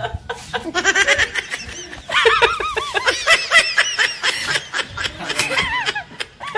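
A woman laughing hard in quick, high-pitched bursts, louder from about two seconds in.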